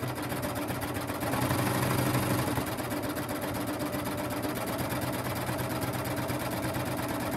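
Baby Lock Triumph serger/coverstitch combo machine running steadily in coverstitch mode, stitching a strip of bias binding through a double-fold binder attachment, not very fast: a rapid, even needle rhythm over a motor hum.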